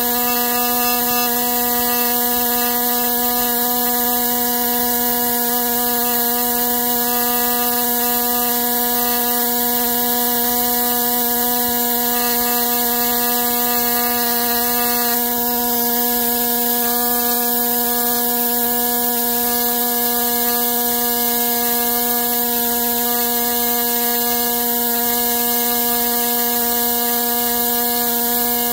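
Pneumatic air scribe running steadily: a constant high buzz with a hiss of air as its vibrating stylus chips shale away from a fossil leaf.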